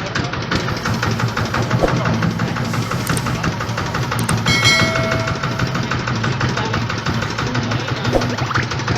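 Rice-husk milling machine running steadily, a dense mechanical rattle. A short pitched tone is heard about halfway through.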